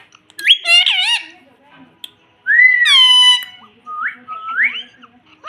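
Indian ringneck parrot calling in high whistled notes: a rising call about half a second in, a longer call about two and a half seconds in that rises and then holds, and two short rising whistles near the end.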